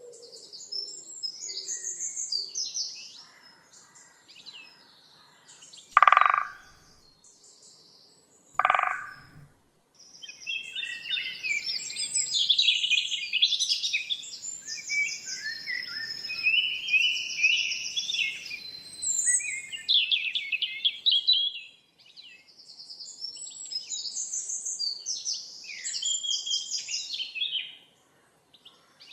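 Many songbirds chirping and singing together in quick, high-pitched trills and twitters. Twice, about six and nine seconds in, a single loud, lower call cuts through the birdsong.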